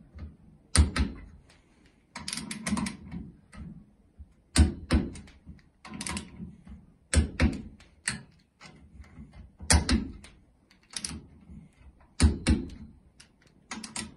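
Ratcheting torque wrench tightening crankcase cover bolts to 30 N·m. It gives short runs of sharp ratchet clicks every second or two, about ten strokes in all.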